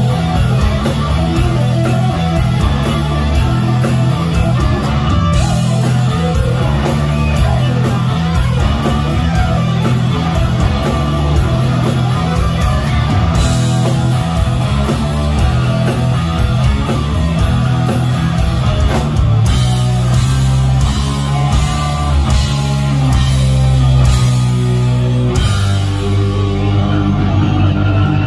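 Hard rock band playing live: distorted electric guitars, bass guitar and drum kit driving together.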